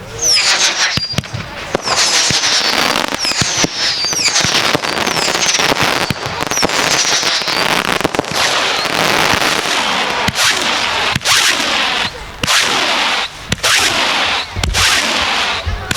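Fireworks display: a dense barrage of bangs and crackling. Short whistling glides sound through the first half, and the barrage thins briefly a few times near the end.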